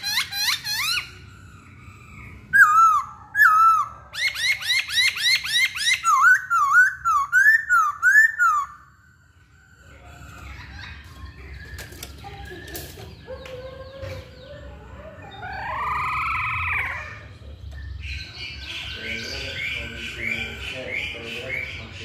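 Masked laughingthrush (Poksay Hongkong) calling: fast runs of loud, repeated rising whistled notes in the first half, then quieter, more jumbled calls with a short run of repeated notes near the end.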